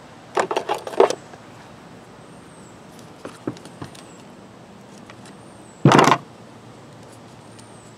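Sharp clicks and taps of a pick working against the plastic recoil starter pulley of a two-stroke leaf blower, fishing out a leftover piece of broken starter rope. A single louder knock comes about six seconds in.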